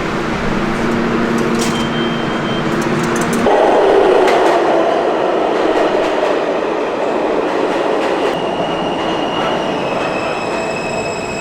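Subway train running on the rails: a steady hum, then a louder rumble from about three and a half seconds in, with thin high wheel squeals.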